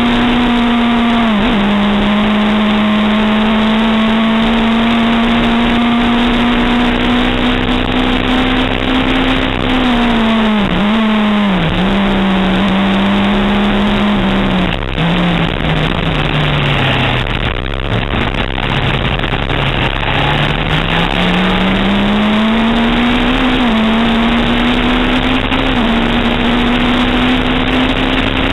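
Onboard sound of a historic Berta Formula 3 car's Volkswagen engine at high revs, with an upshift about a second and a half in. From about ten seconds in the revs drop in steps through downshifts to a low, steady note through a slow corner, then climb back through the gears to high revs near the end, with steady wind and road noise underneath.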